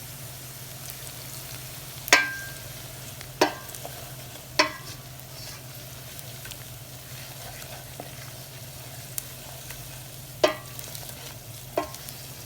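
Onions and spices frying in oil in a pan, with a steady sizzle, while a utensil stirs them and clinks sharply against the pan several times, loudest about two seconds in.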